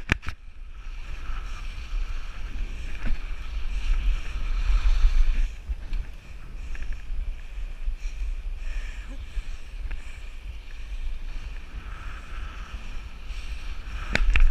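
Wind buffeting the microphone of an action camera on a moving mountain bike: a steady low rumble with hiss, swelling briefly twice.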